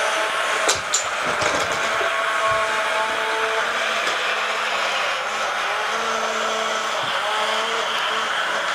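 Remote-control toy tank's small electric drive motor running steadily with a whirring whine that shifts a little in pitch as it drives, with two sharp clicks near the start.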